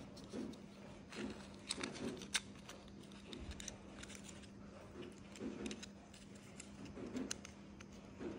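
Small miniature-oven parts handled and pressed together between the fingers: scattered light clicks and taps with soft rubbing, the sharpest click a little over two seconds in. A steady low hum runs underneath.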